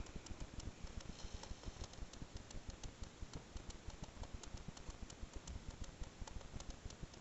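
Faint, irregular clicking, several clicks a second, over a low rumble.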